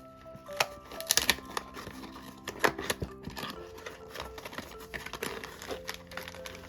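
Hands opening a small blind box and its plastic packaging: irregular clicks, taps and crinkles. Soft background music with long held notes plays under it.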